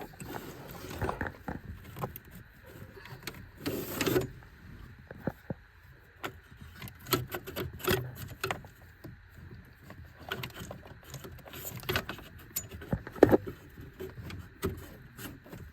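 Scattered clicks, knocks and rustles of hands working under a truck's dashboard, unplugging wiring connectors behind the dropped glove box, with a louder clatter about four seconds in.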